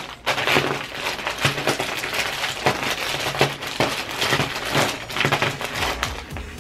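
Crackling and crunching of hot Cheetos and their bag being handled, a dense run of irregular crinkles and crunches.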